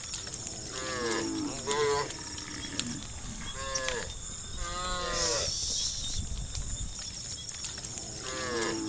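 Cows mooing, about five calls in all, some overlapping and several falling in pitch, with a lull in the middle.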